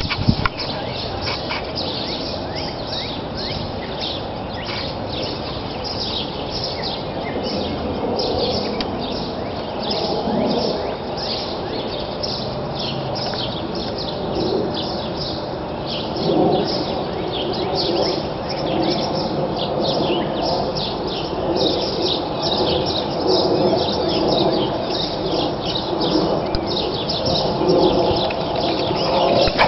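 Birds chirping continuously, many short high calls a second.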